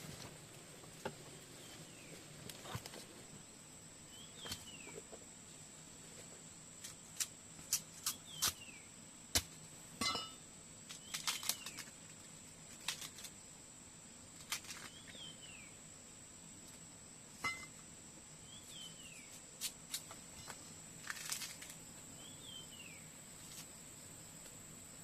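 Countryside ambience: insects keep up a steady high drone while a bird repeats a short falling call every couple of seconds. Scattered sharp clicks and knocks come in between, a few of them louder near the middle.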